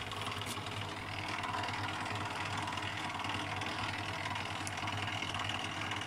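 LG WD-10651T washing machine's drain pump humming steadily while the machine tries to empty for its spin, but no water moves: the pump is failing to drain, the fault behind the OE error.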